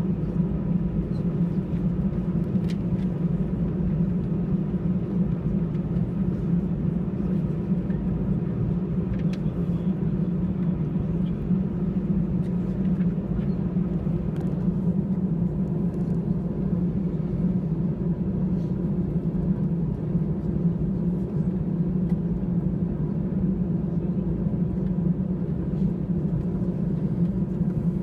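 Airbus A320 jet engines at ground idle heard from inside the cabin over the wing: a steady low drone with a faint steady whine above it, as the airliner sits or taxis slowly before takeoff.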